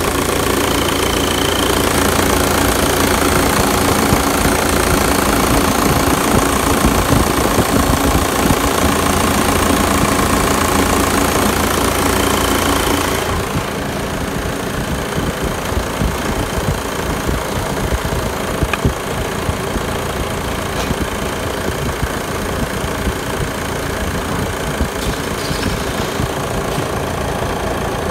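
VW 1.9 TDI (AFN) four-cylinder turbodiesel idling steadily with the usual diesel clatter. About halfway through, the sound becomes a little quieter and duller.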